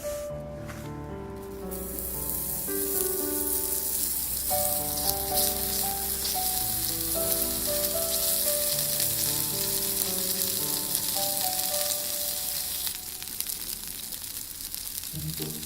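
Food sizzling in a frying pan, starting about two seconds in and easing off near the end, under background music.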